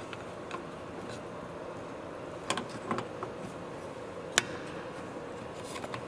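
A few light plastic clicks as the inner door handle assembly and its cable are handled and fitted, the sharpest about four seconds in, over a steady background hum.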